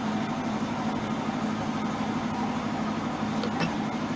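Steady mechanical background hum with a strong low tone and no change in level, with a couple of faint light clicks about three and a half seconds in.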